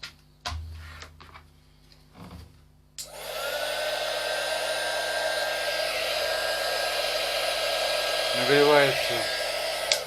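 A small 300 W hot air gun handled with a couple of clicks, then switched on about three seconds in: its fan spins up and blows steadily with a faint whine.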